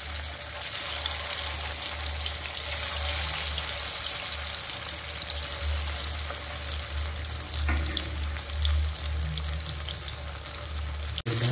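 Masala-coated rohu fish pieces sizzling in shallow oil in a kadai: a steady frying hiss with small crackles, over a low hum.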